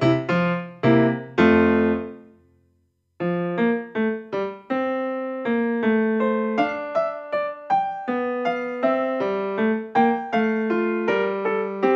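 Background piano music. A phrase dies away about two seconds in, there is a moment of silence, and then the piano starts again with a steady run of notes.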